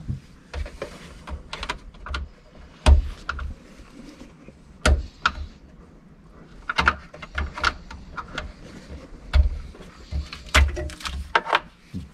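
Irregular clicks, knocks and clatter of hands working on the hybrid system's electronic control units, unplugging plastic wiring connectors and handling metal tools and brackets, about a dozen separate sharp sounds.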